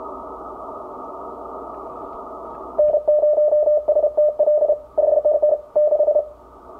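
Icom IC-7300 transceiver's speaker with the hiss of 40 m band noise. About three seconds in, a loud Morse code tone keys on and off in dots and dashes for about three seconds, with the hiss dipping beneath it.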